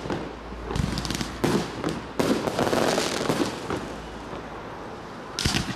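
Fireworks display going off: several sharp bangs of bursting shells with crackling between them, and a quick pair of bangs near the end.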